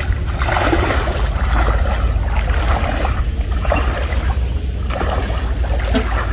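Bare feet wading through shallow muddy water: a run of irregular sloshing, splashing steps over a steady low rumble.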